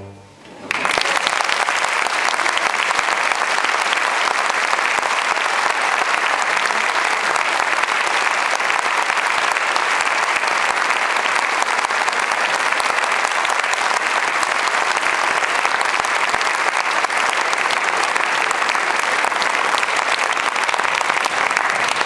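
Audience applauding: dense, steady clapping that breaks in loudly just under a second in, as the orchestra's last note dies away.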